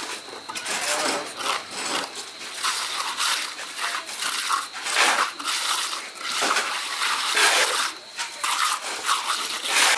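Repeated gritty scraping and crunching strokes at an uneven pace, as of shovels working through concrete mix and gravel.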